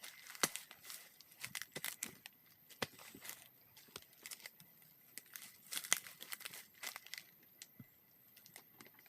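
Faint, irregular crackling and rustling made up of many short, sharp clicks.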